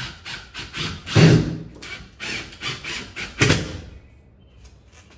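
Cordless drill/driver running in short, rapid pulses as it drives screws to fasten the charger's wall-mounting bracket, with two louder knocks, one about a second in and one about three and a half seconds in. It stops about four seconds in.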